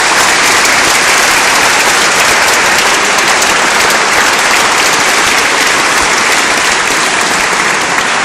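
Audience applauding, loud and steady throughout.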